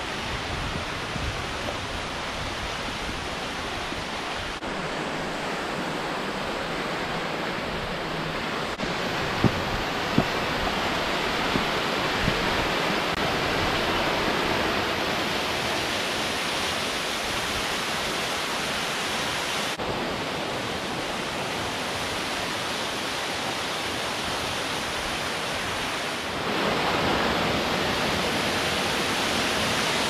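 Small mountain waterfall cascading over mossy rock into a pool: a steady rush of falling water. It grows louder about three-quarters of the way through.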